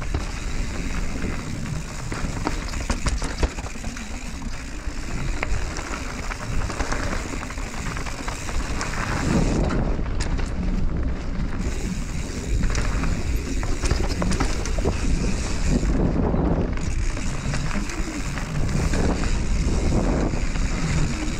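Mountain bike ridden fast down a dirt and gravel singletrack: wind rushing over the camera microphone, tyres rumbling on the trail, and the bike rattling and clicking over stones and roots.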